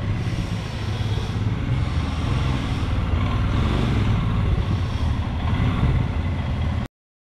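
Motorcycle running steadily on the road, its engine rumbling under road and wind noise. The sound cuts off suddenly near the end.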